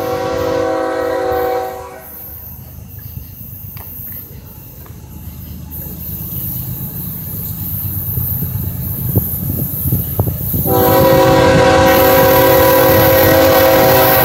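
CSX diesel locomotive air horn sounding a chord, cutting off about two seconds in. A steadily growing rumble of the approaching loaded coal train follows, then another long, loud horn blast starts near the end.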